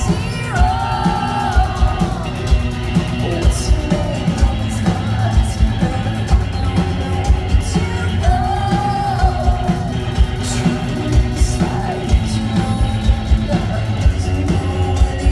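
Live rock band playing loud, with a steady drum beat of about two hits a second and a female singer's long sung lines over it, one just after the start and another about eight seconds in, recorded from the crowd on a phone.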